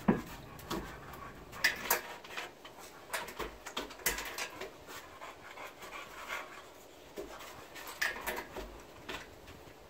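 A dog panting, with scattered small clicks and rustles.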